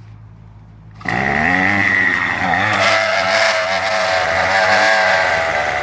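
Gas string trimmer idling low, then opened up to full throttle about a second in, its engine pitch swinging up and down as the head spins thick zip ties fitted in place of trimmer line.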